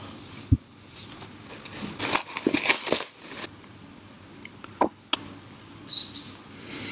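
A single dull knock about half a second in, then a paper food wrapper crinkling and rustling in a dense run of crackles for about a second and a half, followed by a few short clicks.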